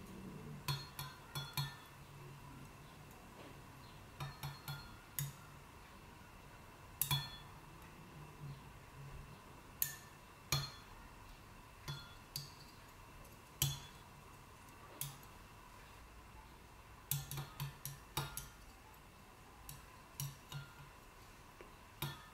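Eggs being beaten with a utensil in a glass Pyrex measuring cup: irregular sharp clinks of the utensil against the glass, some single and some in quick runs of several.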